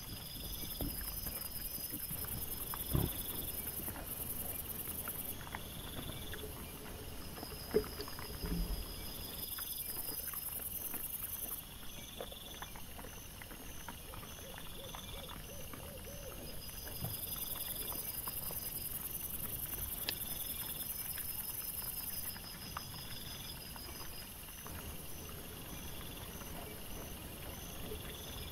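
Sped-up trail-camera audio of wild boars foraging at night: scattered knocks and rustles from the animals, the sharpest about three and eight seconds in, over faint high pulsing tones of night insects and steady camera hiss.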